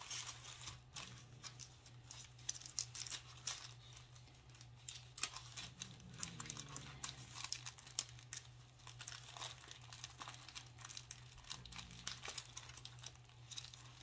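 Clear plastic bag crinkling and rustling in the hands as a paper popcorn pack is worked into it, with irregular crackles throughout.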